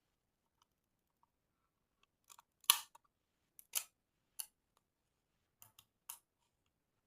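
Sharp mechanical clicks from a metal-bodied Kodak 35 mm film camera's controls being worked by hand: a cluster of clicks about two and a half seconds in, the loudest, then single clicks near four and four and a half seconds, and a double click near six seconds.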